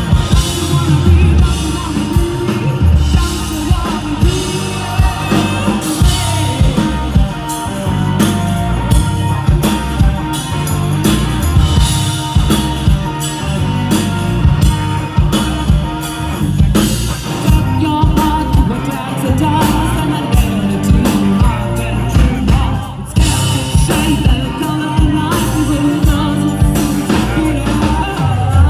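Live rock band playing loud: a Pearl drum kit driving a steady beat with Sabian cymbals ringing out, under bass and guitar. A woman's voice sings lead in the second half.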